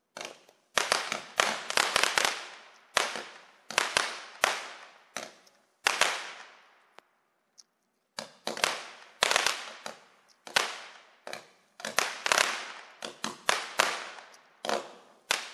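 A Premium Color Pearls 96-shot 200-gram fireworks cake firing its flaming pearls one tube after another, each shot a sharp pop, about two to three a second, with a short pause around the middle.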